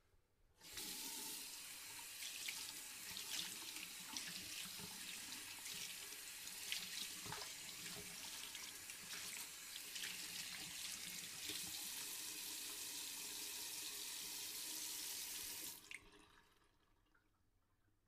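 Sink tap running with hands being washed under the stream, the water splashing unevenly. It is turned on under a second in and shut off about sixteen seconds in.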